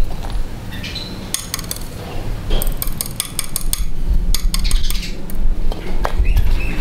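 Small metal engine parts and a hand tool clinking and clicking against a grass-cutter engine's crankcase during hand assembly, in several quick runs of clicks.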